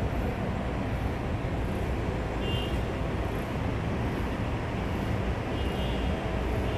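Steady rumble and road noise of a moving vehicle, even throughout.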